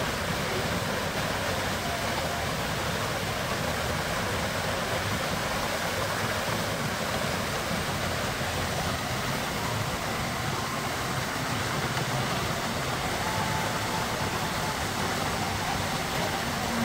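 Steady rush of the Merlion fountain's water jet splashing down into the bay.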